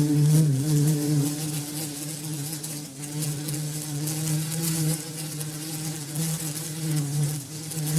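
Bumblebee buzzing: a low, continuous wing hum that wavers slightly in pitch and loudness, dipping briefly a few times.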